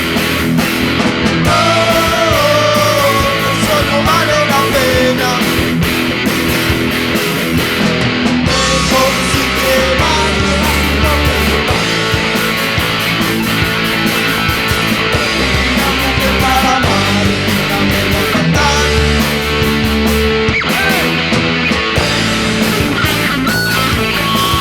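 Instrumental rock music with distorted electric guitar, bass and drums; a lead guitar line bends and slides in pitch over a driving beat.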